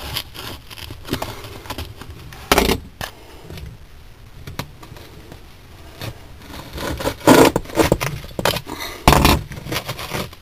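Utility knife blade scraping and cutting a slit through the textured wall of a fibreglass trailer's cupboard, in uneven strokes, the loudest about two and a half, seven and nine seconds in.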